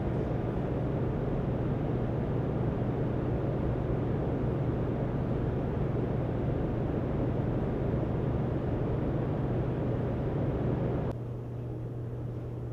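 Steady low machinery hum with a rushing noise over it; the rushing part drops off abruptly about eleven seconds in while the hum continues.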